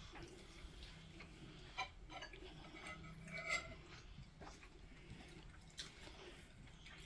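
Quiet room at a meal table with a few faint clicks and light knocks of cutlery and plates.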